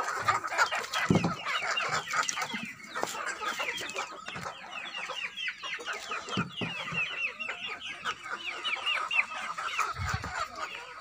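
Backyard chickens clucking over a constant fast chatter of short, high chirps, with a couple of low thumps about a second in and near the end.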